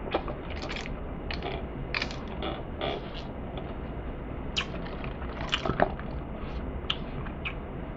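Soda being sipped through a straw from a fountain-drink cup, with a scatter of short wet slurping and swallowing sounds.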